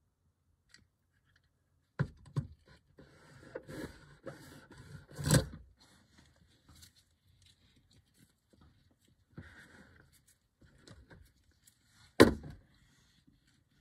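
Small metal parts and a screwdriver being handled on a work mat beside a diecast toy car: light clicks, scrapes and rattles, with a sharp knock about five seconds in and a louder one near the end.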